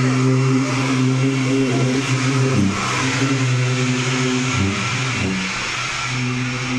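Leaf blower running steadily at high speed, driving air under a homemade plywood hovercraft. Its pitch dips briefly twice and comes back up.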